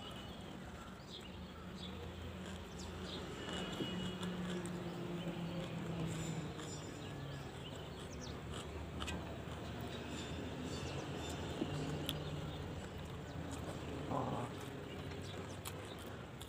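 A person eating by hand, chewing and mixing rice and curry on a steel plate with her fingers, with many small clicks and smacks.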